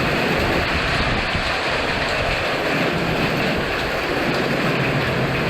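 Storm wind and rain rushing steadily, with wind buffeting the microphone.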